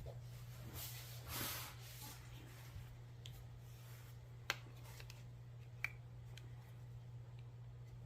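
Metal parts of a Girsan 2311 pistol being handled during disassembly: a brief scraping rustle about a second and a half in, then two sharp clicks about a second and a half apart and a few fainter ticks, over a steady low hum.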